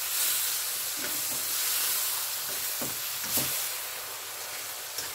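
Button mushrooms sizzling steadily in a wok of garlic butter, dark soy sauce and honey, stirred with a spatula that knocks and scrapes against the pan a few times. The sauce is reducing and starting to thicken.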